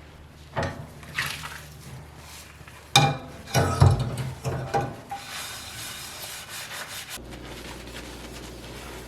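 Household handling sounds: a series of knocks and clatters of objects being handled and set down, over a steady low hum. About seven seconds in the background changes abruptly to a different steady hum.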